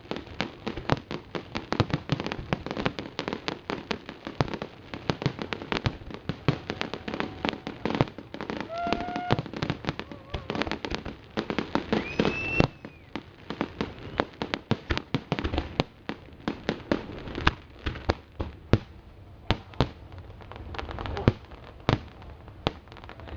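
Fireworks display: a dense, continuous run of bangs and crackling from shells bursting, with two brief whistles, one about a third of the way in and one about halfway.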